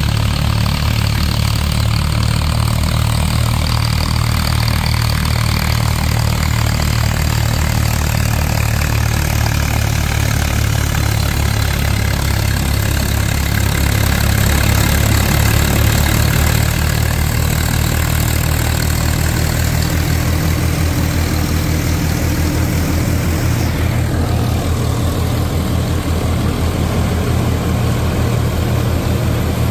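Tractor diesel engine running steadily while driving a tractor-mounted combine harvester, with a low, even beat.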